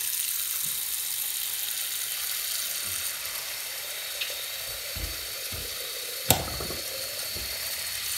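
Water running steadily from a two-handle Delta bathroom faucet into the sink basin, the supply just turned back on to test the rebuilt valve. A single sharp knock about six seconds in.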